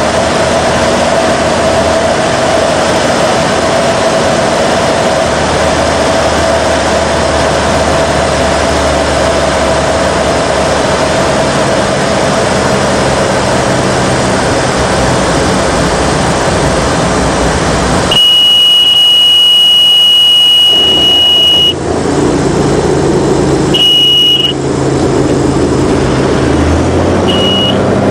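Cirrus SR20 cockpit: a steady drone from the piston engine and propeller, then about 18 s in a loud, steady, high-pitched warning tone sounds for nearly four seconds, followed by two short chirps of the same tone. This is the stall warning sounding during the landing flare and touchdown.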